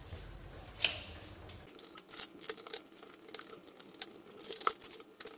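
Light metallic clicks and taps of plumbing fittings being handled under a wash basin during a basin-tap and stop-valve replacement, scattered and irregular, coming more often from about two seconds in.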